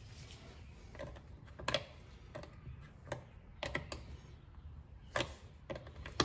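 Scattered light clicks and taps, about eight over six seconds and irregularly spaced, of small parts being handled while a replacement carburetor is fitted to a hedge trimmer engine.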